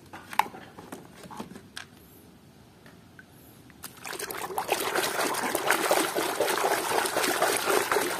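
A plastic toy being swished and scrubbed by hand in a tub of water. A few faint clicks at first, then about four seconds in, steady splashing and sloshing.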